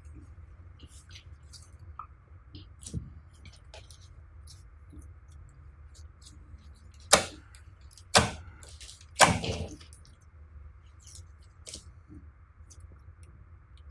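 Slime being worked by hand, with scattered small clicks and pops and three louder sticky hits about a second apart past the middle, over a faint low hum.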